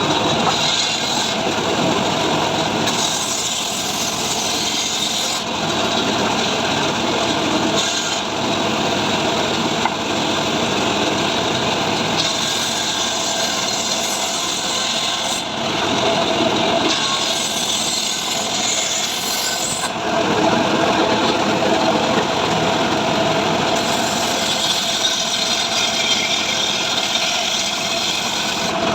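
Engine-driven saw running under load, cutting through dry mahogany wood, the pitch and texture of the cut shifting every few seconds.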